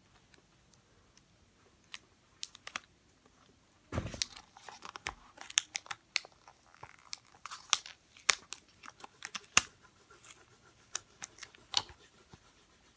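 Paper and sticky tape being handled on a tabletop: scattered crinkles, clicks and light taps. A thump about four seconds in, after which the crinkling and clicking gets busier.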